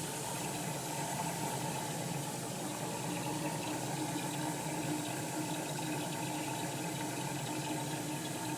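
LG washing machine filling with water: a steady rush of water running in through the inlet valve, with a steady hum underneath.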